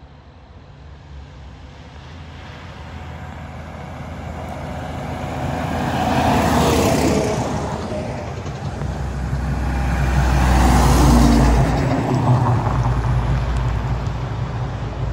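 Coal haul dump trucks driving past on a narrow road, their diesel engines rumbling with tyre noise. The sound builds from the start to two loud peaks about four seconds apart, as two trucks go by one after the other, and the low engine rumble is heaviest with the second.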